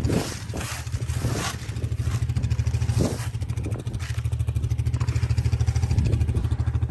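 A nearby engine idling steadily with an even low throb. A few short scrapes and clatters come in the first second and a half and once more about three seconds in.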